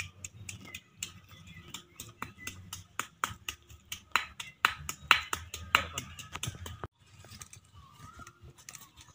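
Pestle pounding chilli in a mortar: a fast run of sharp knocks, several a second, that stops abruptly about seven seconds in. Birds chirp faintly after it.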